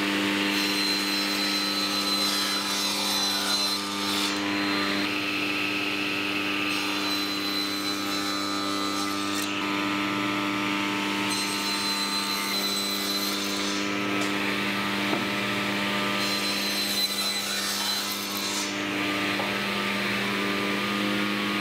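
Table saw running steadily with an even motor whine while its blade trims the edges of a wooden hexagon flush to a template. The cutting noise rises and falls in several stretches as each side of the hexagon is fed past the blade.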